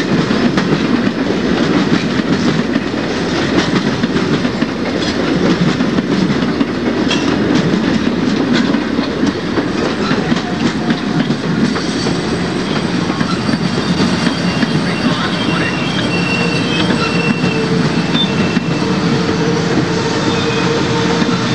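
Amtrak passenger train's cars rolling past close by: a steady rumble of wheels on rail with clickety-clack over the rail joints. Thin high wheel squeals come through faintly in the second half.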